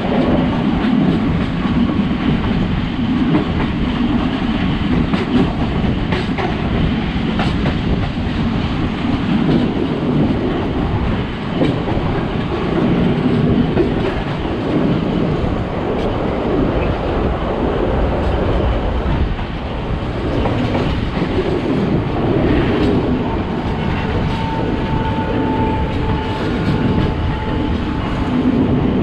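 Passenger train carriage in motion, heard from inside: a steady rumble of wheels on rails with clickety-clack over the rail joints. A thin steady whine comes in for a few seconds near the end.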